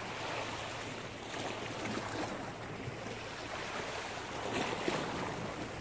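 Sea water washing against the shore, a steady hiss with a faint steady low hum underneath.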